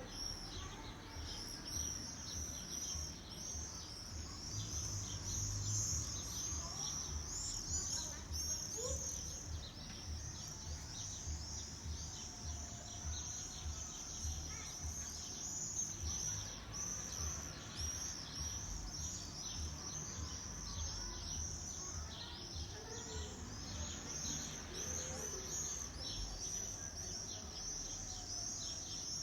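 A flock of small songbirds chirping continuously in a dense chatter of quick, high chirps, over a low rumble.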